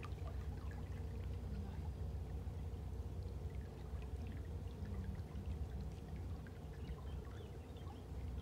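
Canal narrowboat under way, heard from the bow: water splashing and trickling at the bow in many small crackles over a steady low rumble from the boat's engine.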